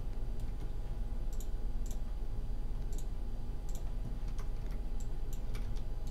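Computer keyboard keys and mouse buttons clicking now and then as the 3D modelling software is worked, over a steady low hum.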